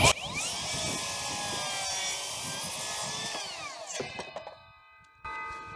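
Makita HS011G 40V cordless circular saw spinning up with a rising whine and cutting square through the top of a 4x4 timber fence post in one pass, then winding down after about four seconds.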